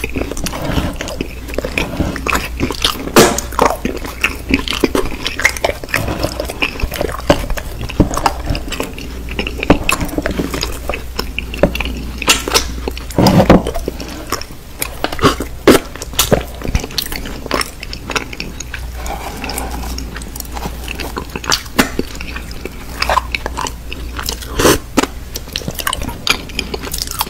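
Close-miked biting and chewing of bars styled as soap: sharp, irregular crunches and wet mouth sounds, over a low steady hum.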